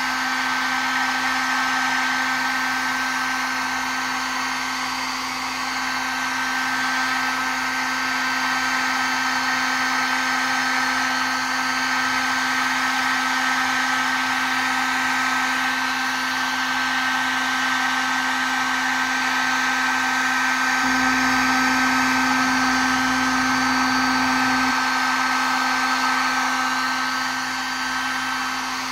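Electric heat gun running steadily, its fan blowing hot air with a steady hum and a thin high whine over a rush of airflow. The hum grows briefly louder for a few seconds about three-quarters of the way through.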